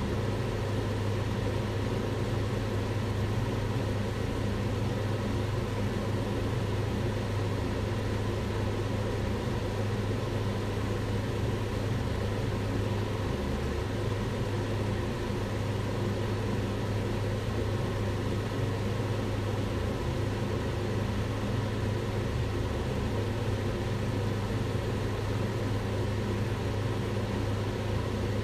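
Kitchen range hood extractor fan running steadily: a constant whoosh of air with a low motor hum.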